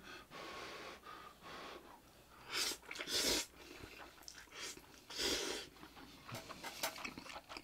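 A person slurping hot instant noodles off chopsticks: softer breathy sounds at first, then about three short, airy slurps.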